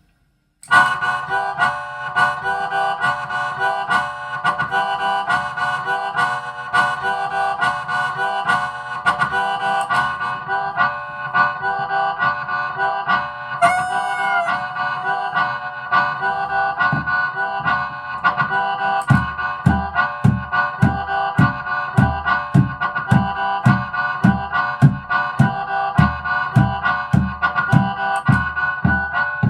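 Harmonica playing a rhythmic minor-key piece in pulsing chords. About two-thirds of the way through, a steady beat of low thumps, about two a second, comes in under it.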